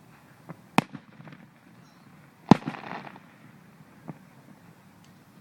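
Aerial fireworks exploding: a sharp bang about a second in, a louder one halfway through followed by a short spell of crackling, and a few fainter pops.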